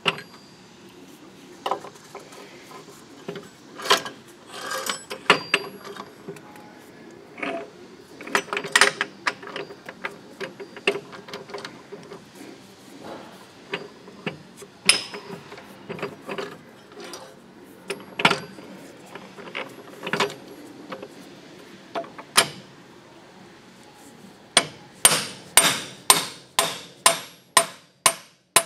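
Steel gears and shafts being handled and slid into place in an engine lathe headstock gearbox: scattered metallic clinks and knocks. Near the end comes a run of evenly spaced sharp clicks, about two a second.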